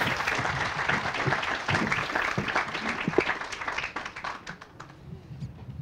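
Audience applauding, the clapping thinning out into a few scattered claps and dying away over the last couple of seconds.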